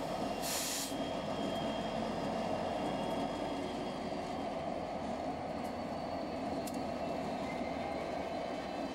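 HO-scale model BNSF diesel locomotives with onboard sound running slowly, giving a steady diesel engine drone. A short burst of air hiss comes about half a second in.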